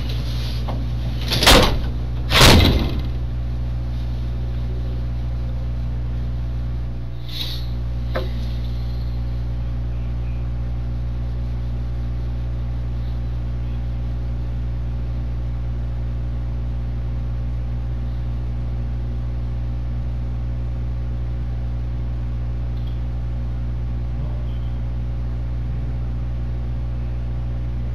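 A door shutting, with two loud knocks about a second and a half and two and a half seconds in, then a steady low hum for the rest, broken by one fainter knock around seven seconds.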